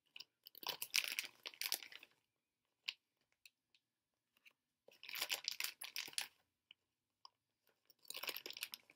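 Three short bouts of crinkly rustling and crunching close to the microphone, from a plastic bag of sugar-coated jelly-men candy being handled and a piece eaten, with small clicks in between.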